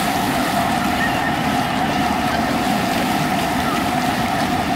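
Splash-pad fountain jets spraying water up from the paving and splashing back down: a steady hiss with a constant hum under it.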